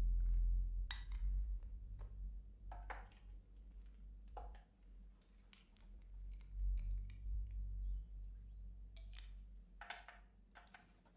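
Low steady hum of room tone, with scattered soft rustles and clicks of people moving about; the clearest comes about a second in, and a short cluster near the end.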